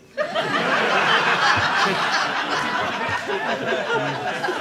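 Theatre audience laughing at a punchline. The laughter starts about a quarter second in, peaks over the next couple of seconds, then slowly dies down.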